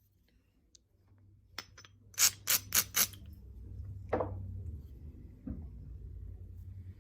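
Novaculite being flintknapped: a few faint clicks, then four sharp, bright ticks of stone flaking in quick succession about two seconds in, followed by softer scraping against the stone.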